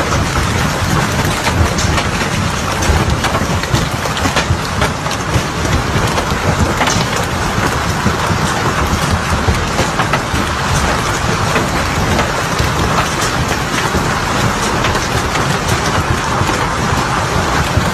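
Heavy hail pelting down in a storm: a dense, steady clatter of countless small impacts, with strong wind rumbling underneath.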